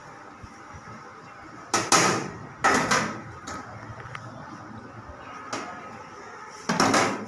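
Cleaver chopping through sponge cake and striking a stainless steel worktable: sharp knocks in three quick pairs, about two seconds in, near three seconds, and near the end.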